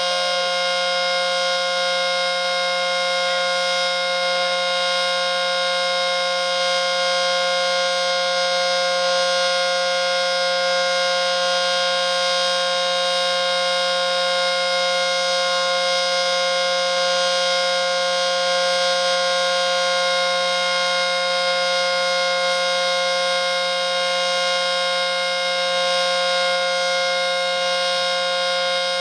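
ACA Screamer S-10 outdoor warning siren sounding a loud, steady tone held at one pitch during its scheduled monthly test.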